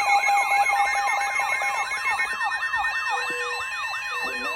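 Electronic siren and alert tones sounding together: a fast falling sweep repeating about three times a second over steady beeping tones and a high stepped warble. The lower steady tone stops about halfway through.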